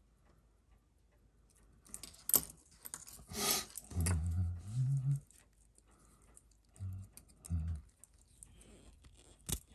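Small sharp metallic clicks and snaps as a rusted-solid watch spring bar is forced and breaks apart, freeing a steel beads-of-rice bracelet from the watch case. The loudest click comes about two and a half seconds in, and another sharp click comes near the end. A few low murmured hums are mixed in.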